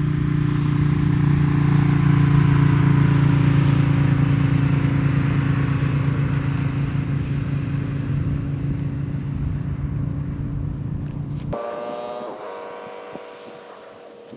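Motorcycle engine running steadily as it passes, loudest a couple of seconds in and slowly fading away. It cuts off suddenly near the end.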